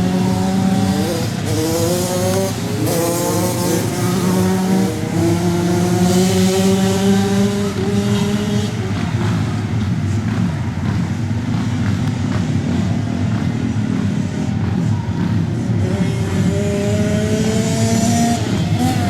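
Off-road racing engines running on a dirt track. Their pitch repeatedly climbs under throttle, then drops at each shift or lift, with a rougher stretch of several engines in the middle.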